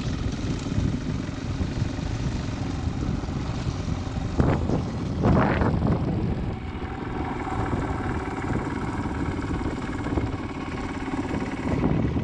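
Motorcycle engine running steadily while riding, with two short louder sounds about four and a half and five and a half seconds in.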